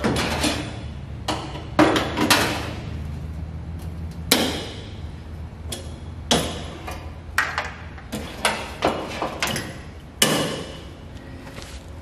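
A hand-made sheet-steel patch panel knocking and clanking against the body of a 1963 IH Metro-Mite step van as it is pushed into place at the wheel arch for a test fit. There are about a dozen irregular knocks of thin sheet metal, some ringing briefly, the loudest about two, four and ten seconds in.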